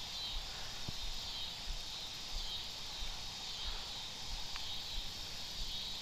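Steady high-pitched insect chorus over a faint low rumble, with two faint ticks about a second in and near the end.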